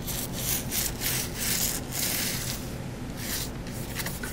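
Scrubbing strokes on an iPad mini logic board, rubbing off corrosion residue with cleaning solution. The strokes are irregular and come several to the second, with a short pause about three seconds in.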